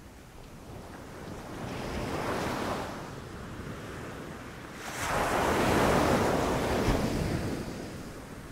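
Ocean surf washing onto a beach: one wave swells and breaks about two seconds in, and a louder one about five seconds in, falling away near the end.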